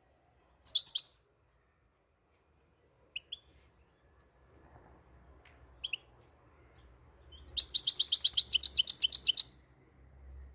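European goldfinch (Moroccan goldfinch) singing: a short burst of high twittering notes, a few single chirps, then a fast run of rapid twittering notes lasting about two seconds near the end.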